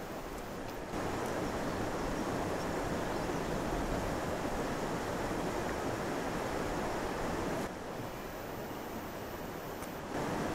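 Steady rushing wind noise on the microphone with an uneven low rumble, stepping up abruptly about a second in and dropping back about three-quarters of the way through.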